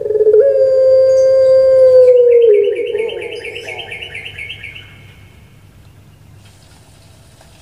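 Puter pelung dove, a long-voiced Barbary dove (Streptopelia risoria), ending its call with one long drawn-out coo of steady pitch lasting about two seconds and dipping as it stops. A higher, rapid chirping follows just after it.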